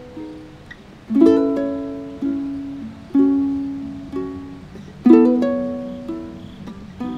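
Background music on a plucked string instrument: a chord plucked about once a second, each ringing out and fading before the next.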